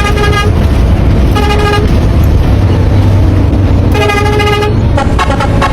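Bus horn sounding three short blasts of one steady pitch over a continuous low engine rumble. Music starts near the end.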